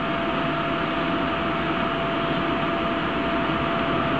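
Steady hum and whir of running workshop machinery, with a steady whine held throughout.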